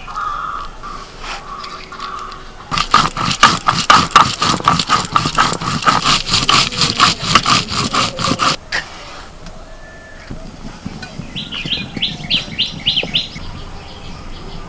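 Soaked whole spices, chillies and ginger being ground to a wet paste on a flat stone slab with a stone roller (sil-nora): a quick, even run of rasping grinding strokes, several a second. It starts a few seconds in and stops abruptly about six seconds later.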